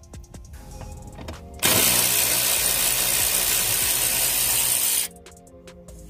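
Electric ratchet with a 7 mm socket running to back out a dash-panel bolt. Its motor starts about a second and a half in, runs steadily for about three and a half seconds and cuts off abruptly. Background music plays throughout.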